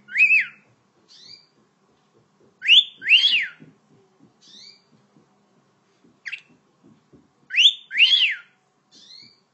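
Cockatiel whistling: three loud pairs of arching whistles, near the start, about three seconds in and about eight seconds in, with short high chirps between them.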